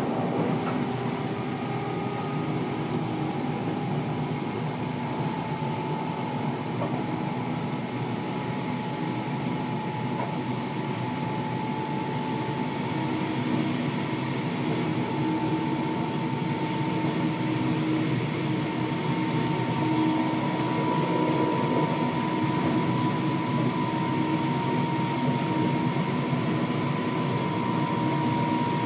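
Belgian NMBS AM62 classic electric multiple unit running at speed, heard from inside the driver's cab: a steady rumble of the running gear on the rails under a motor whine that rises slowly in pitch as the train gathers speed.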